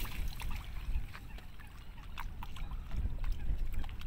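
Water sloshing and splashing against shoreline rocks, stirred by a hooked carp being played in close, over a low wind rumble on the microphone, with scattered faint ticks.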